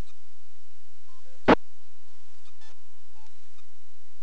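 Ham radio receiver audio on an open frequency: a steady low hum, one sharp click about a second and a half in, and a few short, faint electronic beeps.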